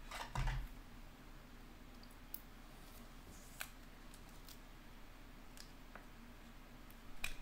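Quiet room tone with a soft bump about half a second in, then a few faint, sparse clicks, with a little more handling noise near the end.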